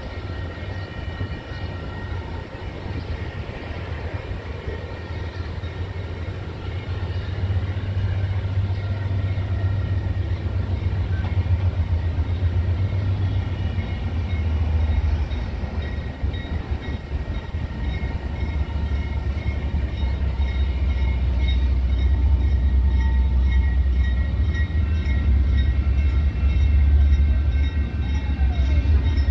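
A GE C40-9W diesel-electric locomotive approaches at the head of a freight train. Its V16 diesel engine makes a low rumble that grows steadily louder as it nears.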